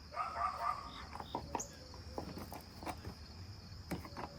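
Crickets trilling steadily in the background, with scattered light clicks and knocks.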